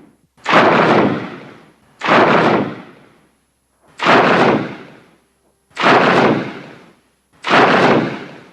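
Five separate Rodan monster sound effects, each a rushing burst of noise that starts suddenly and fades out over about a second, with short silences between.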